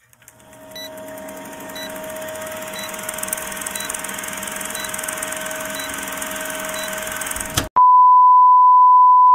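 Film-countdown intro sound effect: a steady hiss with a low hum and a short high blip about once a second. About eight seconds in, it cuts to a loud, steady test-tone beep, the one that goes with TV colour bars.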